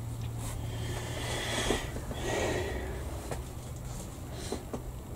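A few light clicks of a plastic model part and hobby tools being set down on a workbench, with a long breath from the modeller about two seconds in, over a low steady hum.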